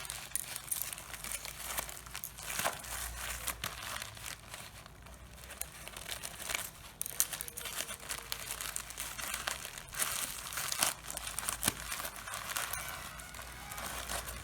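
Packaging of a power bank being handled and opened by hand: plastic and paper crinkling and rustling in irregular crackles, with a few sharper crackles along the way.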